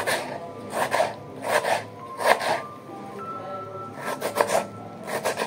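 Knife cutting a tomato on a wooden chopping board: a string of short, irregularly spaced cuts, with background music under them.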